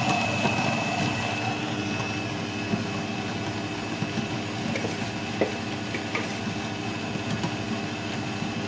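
Electric stand mixer running steadily as it kneads soft poğaça dough, its motor hum carrying a high steady whine, with a few light clicks.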